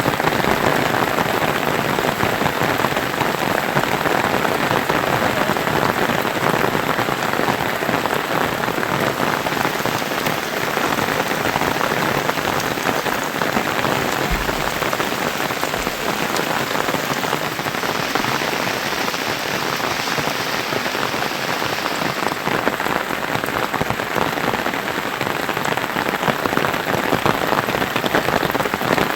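Steady rain falling, an even, continuous patter of drops.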